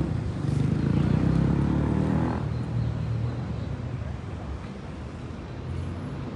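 City traffic: a motor vehicle's engine passes by, loudest in the first couple of seconds and fading about two and a half seconds in, leaving a low, steady traffic hum.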